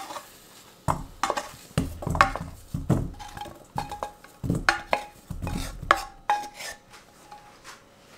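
Kitchen utensils clinking and knocking against dishes: a dozen or so irregular knocks, some leaving a short ringing tone, ending about six and a half seconds in.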